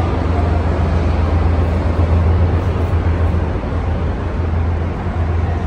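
Steady low rumble with a constant deep hum underneath and an even wash of noise over it, the background noise of an underground train-station passageway. It holds level, with no distinct events.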